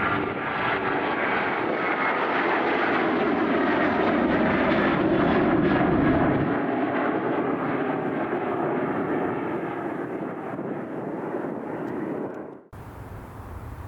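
Jet engines of a departing Boeing 737-800, its CFM56-7B turbofans running at takeoff or climb power: the noise swells to its loudest about halfway through, then eases off as the plane moves away. The sound cuts off abruptly near the end, leaving a much quieter background.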